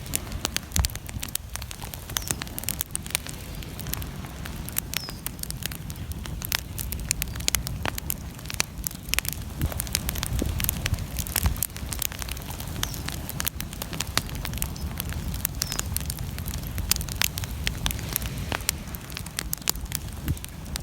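Bonfire crackling, with many irregular sharp pops and snaps over a steady low rumble.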